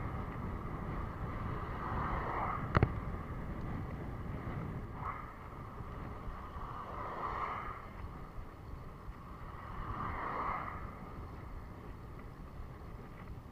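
Wind on the microphone and road noise from a road bike riding on asphalt, with one sharp click a little under three seconds in.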